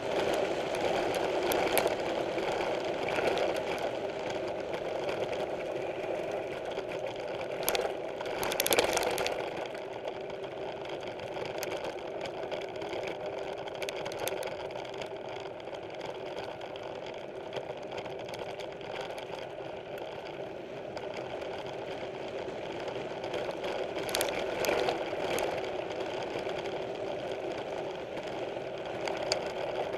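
Mountain bike being ridden: a steady mechanical buzz from the rolling bike, with rattling and sharp knocks from bumps in the trail, loudest around eight seconds in and again near twenty-five seconds.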